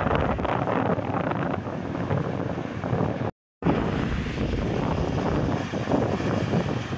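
Heavy trucks going past on a highway, a steady rush of engine and tyre noise with wind on the microphone. The sound cuts out for a moment about three seconds in, then the traffic noise resumes.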